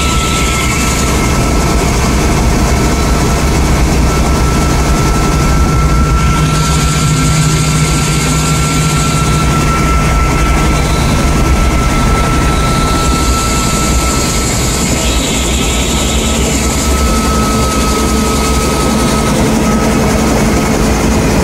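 Vintage Bell 47 helicopter's piston engine and rotor running steadily, heard from inside the bubble cockpit.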